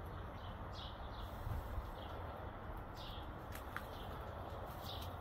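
A small bird chirping in short falling notes every second or two, over a steady low outdoor background rumble.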